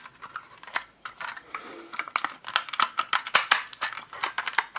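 Hard plastic toy parts clicking and clattering as they are handled and fitted together: the G1 Powermaster Optimus Prime trailer being worked on. The clicks are irregular and grow busier about two seconds in.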